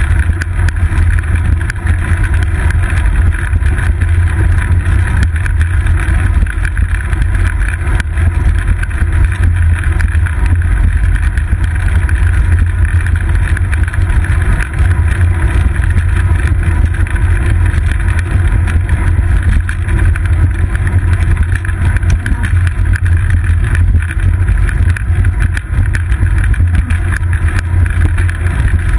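Steady, loud low rumble of wind buffeting and road vibration picked up by a seat-post-mounted GoPro Hero 2 in its housing as the bicycle rolls over a paved path.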